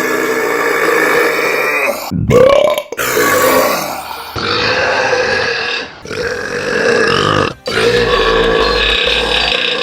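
Human burps, loud and drawn out, about six in a row, each broken off suddenly by the next.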